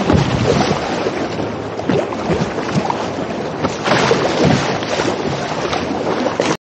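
Choppy, wind-driven waves splashing and slapping against a sea kayak's bow, with wind buffeting the microphone. The sound cuts off abruptly near the end.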